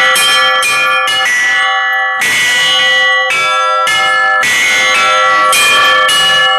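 Russian Orthodox church bells being rung: several bells of different pitch struck in quick succession, about two strikes a second, their ringing tones overlapping.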